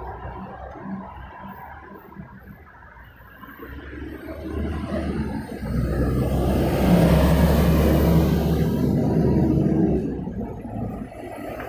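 Street traffic: a motor vehicle passes close by. Its engine rumble and tyre noise build from about four seconds in, are loudest around the middle, and fade away near the end, over a background of more distant traffic.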